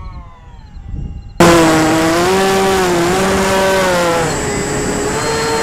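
Electric motors and propellers of a Hobby King DC-3 model plane whining in flight, heard from the ground at first. About 1.4 s in, the sound cuts abruptly to the plane's onboard camera: a loud, close motor whine with rushing wind, its pitch rising and falling as the throttle changes.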